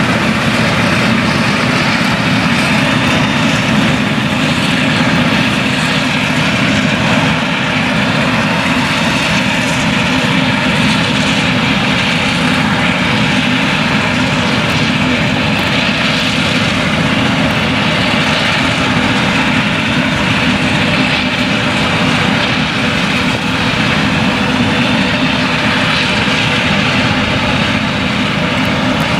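Claas Jaguar 970 forage harvester's MAN V8 engine running steadily under full load while chopping maize, a loud unbroken drone with the hum of the chopping drum and crop blower.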